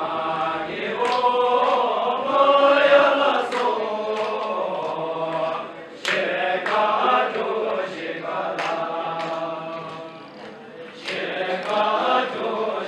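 A group of men singing a Bhutanese folk dance song in unison, punctuated by a sharp clap about every two and a half seconds.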